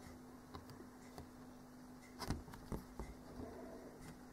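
Quiet room with a faint steady hum and a few soft clicks and rustles from hands handling a paper card and a hand-held camera, the most noticeable about two and a quarter and two and three-quarter seconds in.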